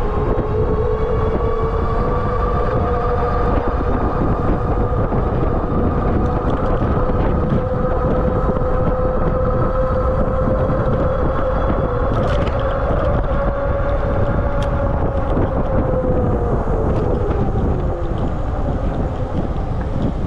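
Aniioki A8 Pro Max e-bike's electric hub motor whining steadily at cruising speed on throttle alone, over heavy wind rush on the microphone. The whine sinks in pitch near the end as the bike slows.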